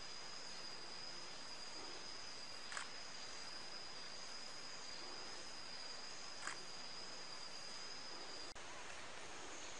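A steady high-pitched insect drone over faint forest background, with two short sharp clicks a few seconds apart. The drone cuts off abruptly near the end.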